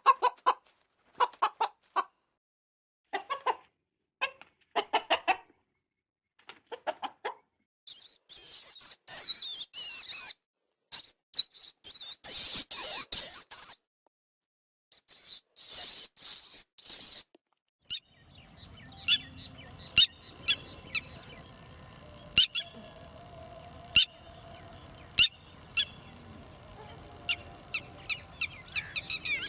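Bird calls in three stretches: short repeated calls for the first seven seconds, then high chirps with quick pitch glides, then a quieter stretch of faint background with sharp clicks and occasional calls.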